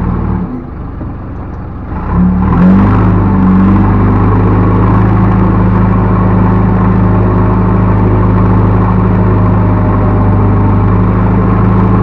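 Backhoe loader's diesel engine running hard; it eases off about half a second in, then revs back up around two seconds in and holds steady at high revs.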